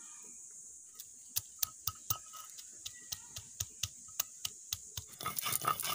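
Stone pestle pounding garlic cloves and ginger on a flat stone grinding slab (shil-nora). Sharp separate knocks come about two to three a second, turning into faster, denser crushing near the end as the garlic breaks down into paste.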